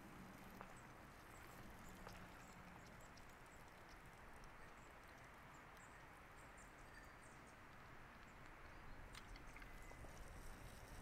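Faint footsteps of a person walking on a mountain path, scattered soft crunches and clicks over a quiet outdoor hush.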